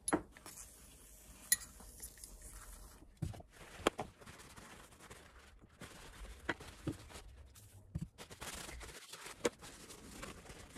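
Light metal clinks of Mahle connecting-rod bearing shells and a rod cap being handled and set down, here and there, with paper towel rustling as the parts are wiped clean.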